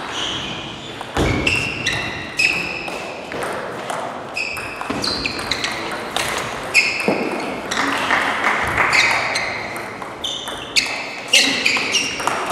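Table tennis ball clicking off bats and the table in a rally, a quick string of short, high pings, several a second, some overlapping.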